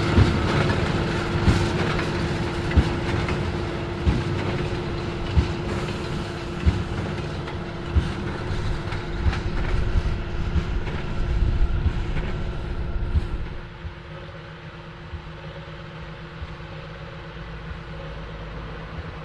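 John Deere 8530 tractor running steadily under load while the Krone BigPack large square baler works, its plunger thumping regularly about every 1.3 seconds. About 13 seconds in the sound drops suddenly quieter and duller.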